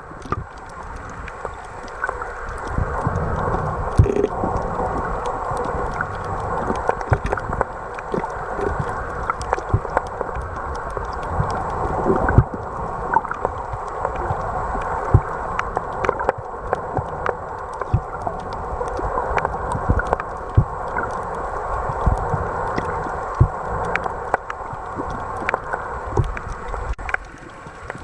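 Snorkeling water noise: muffled sloshing and gurgling water, with frequent sharp clicks and pops.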